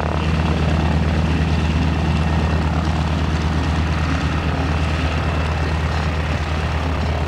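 Propeller airplane's piston engine running in flight, a steady low drone with a strong engine beat.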